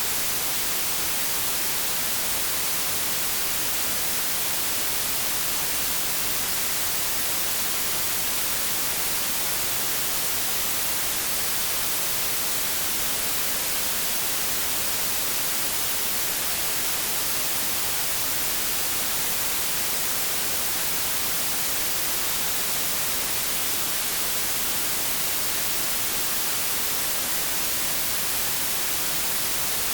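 Steady white noise: an even, unbroken hiss, strongest in the treble, that does not change.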